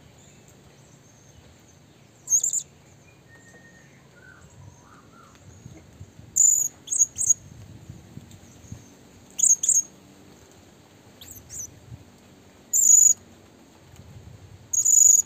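Short, very high-pitched chirps from a bird, coming singly or in quick groups of two or three every second or two.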